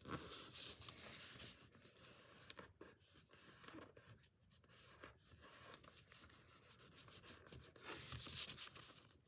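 A sheet of origami paper being folded and creased by hand: soft, irregular rubbing and scraping as fingers press the folds flat and slide the paper on the table. It is louder in the first second and again about eight seconds in.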